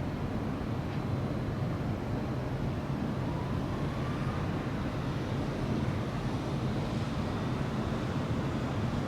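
Steady low ambient rumble, an even noise with no firework bangs in it.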